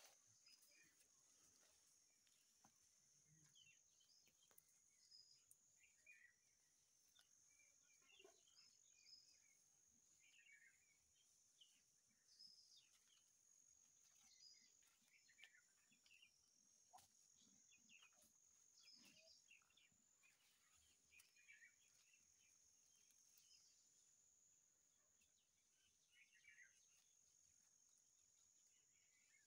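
Faint woodland ambience: scattered short bird chirps over a steady high-pitched insect buzz that breaks off now and then.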